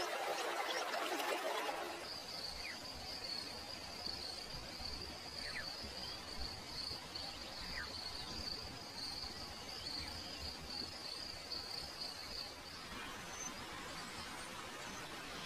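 Jungle ambience: an insect holds a steady high-pitched buzz for about ten seconds, with a few faint short bird chirps over it. A broad hiss fills the first two seconds and comes back near the end.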